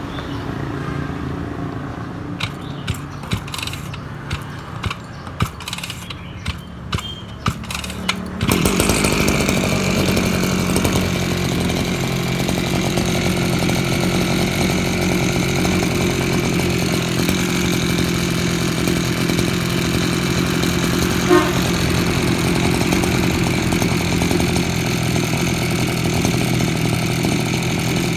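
A run of clicks and knocks, then about eight seconds in the two-stroke engine of an Echo SRM-311F brush cutter starts and runs steadily at an even speed.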